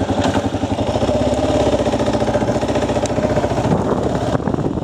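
Motorcycle engine running with a fast, even firing pulse as the bike moves off at low speed.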